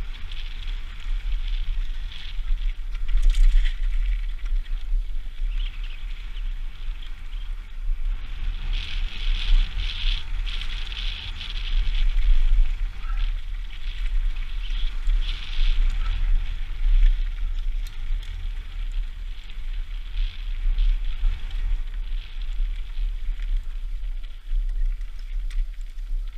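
Mountain bike ridden fast down a rocky gravel trail, heard from a helmet-mounted camera: heavy wind buffeting on the microphone under the irregular crunch and clatter of tyres over stones and roots.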